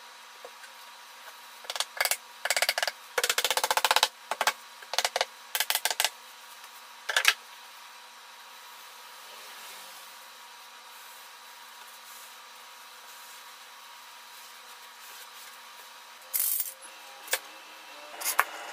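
Sharp knocks and taps on a wooden box frame as a glue-lined wooden strip is fitted into place, in quick clusters with a dense rattling run a few seconds in. After a long quiet stretch come a few more knocks near the end.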